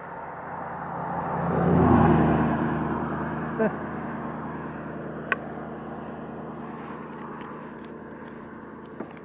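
A road vehicle passing by, its engine and tyre noise swelling to a peak about two seconds in, then fading away slowly. Two short sharp clicks come in the middle.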